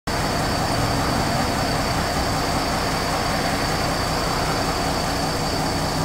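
Steady rain falling, an even, constant hiss.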